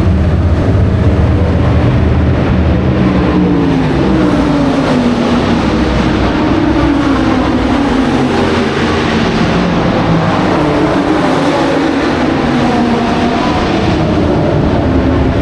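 Historic racing car engines running loudly at the circuit, the engine note falling and rising as the cars lift off, shift and accelerate.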